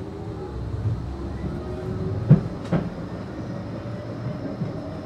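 Blackpool tram running along street track, heard from on board: a steady rumble and hum of the car and its motors, with two sharp knocks a fraction of a second apart about two and a half seconds in.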